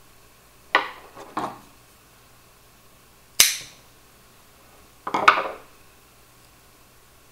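Scissors snipping through a dried luffa (natural loofah) sponge: a handful of crisp, crackly cuts, the sharpest and loudest a little before the middle, then a rapid cluster of crunchy snips about five seconds in.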